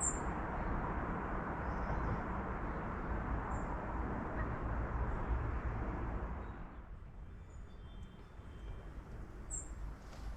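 Wind gusting across the microphone in open country, a rushing noise with a low buffeting rumble that eases about two-thirds of the way in, with a few faint bird chirps.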